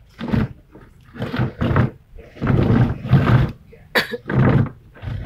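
Wordless vocal bursts, about eight short loud shouts or growls in quick succession, with a sharp knock about four seconds in.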